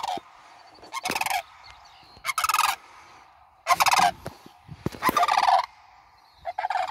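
Two sandhill cranes calling in flight: a run of six loud, rolling calls, each about half a second long, spaced a little over a second apart.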